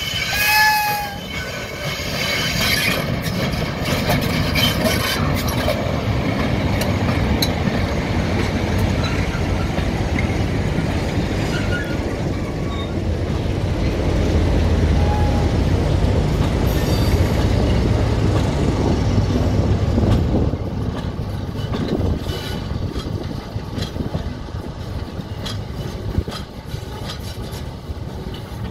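Freight train of tank wagons behind a Class 60 diesel-electric locomotive rolling slowly through yard switches: a low rumble of engine and wheels with many clicks and clunks as the wheels cross rail joints and points. It grows louder towards the middle and eases off over the last third, with a brief high squeal about half a second in.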